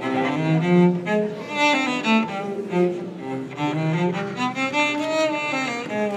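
Music: a bowed cello playing a melody, the notes changing about every half second over lower sustained tones.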